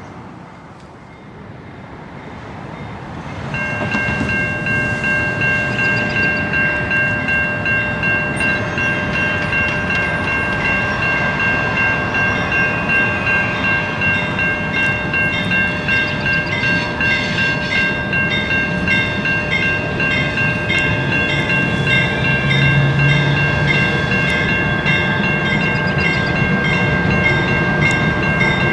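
Railroad grade-crossing warning bell starts ringing about three and a half seconds in and keeps ringing steadily, over a low rumble that grows as a train approaches.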